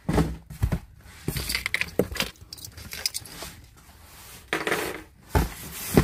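Hands rummaging in a cardboard box: irregular knocks and scrapes of cardboard and product boxes, with light metal clinks from small keychain pocket knives being picked up. A longer scrape comes near the end.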